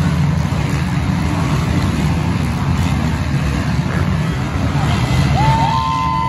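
Several motocross bikes racing around a dirt track, their engines blending into a steady, loud drone. About five seconds in, a few high tones rise in one after another and hold.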